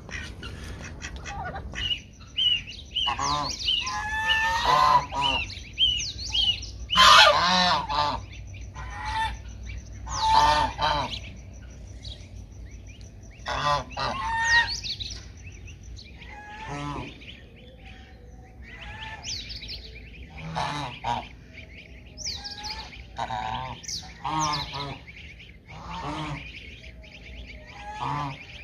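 Domestic geese honking again and again, loudest about a third of the way through, with their goslings peeping in runs of quick, high chirps.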